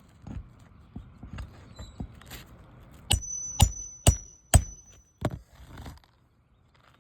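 Hammer driving a roofing nail through a shingle: a few light taps, then five hard ringing blows about half a second apart past the middle.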